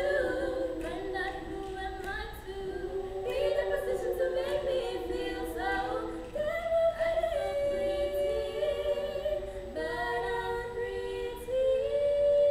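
School glee club singing a cappella in harmony, with girls' voices leading. Moving phrases give way to long held notes in the second half.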